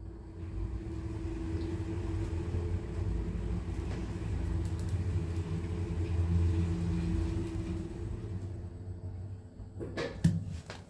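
Lift car travelling between floors, heard from inside the car: a steady low rumble with a held hum as it starts off, runs and slows. Near the end come a couple of clicks and a knock as the car stops.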